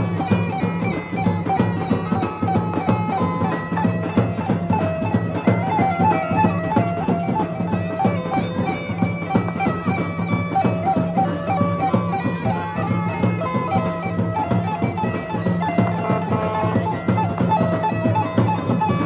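Band music of reed wind instruments and drums: a piping melody over a steady low drone, with continuous drumming.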